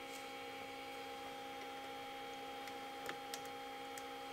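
Steady hum of a powered-on Lotmaxx Shark V2 3D printer standing idle: several fixed tones over a faint hiss from its fans and electronics. A couple of faint clicks come about three seconds in.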